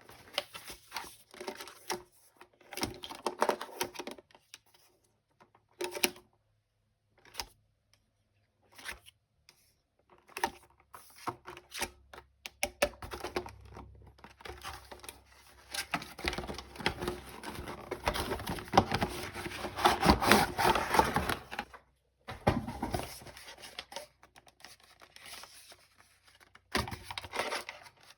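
Toy packaging being handled and opened by hand: scattered clicks and taps with crinkling and tearing, busiest and loudest a little past the middle.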